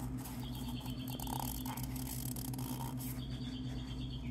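Shop rag being rubbed around inside a cut-open steel oil filter can, a faint scrubbing and squeaking over a steady low hum.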